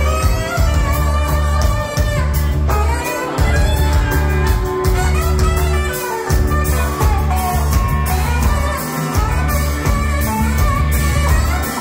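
Live rock band playing loud through the house PA: drums, bass and electric guitars with keyboards and saxophone, with a heavy, steady bass line and regular drum hits.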